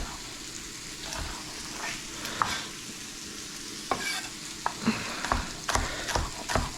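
Sliced onions frying with a steady sizzle in a hot pan, with irregular clicks and knocks of kitchen utensils that come more often in the second half.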